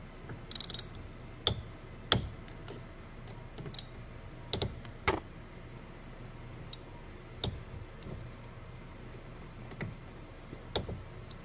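Scattered light metallic clicks and taps as a T30 Torx bit and loosened screws work at the metal fuel filter housing lid, over a faint low steady hum.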